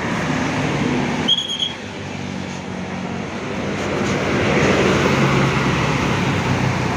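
A large diesel bus engine running amid road traffic, growing louder about four seconds in as it moves past. A short, high-pitched tone sounds briefly about a second in.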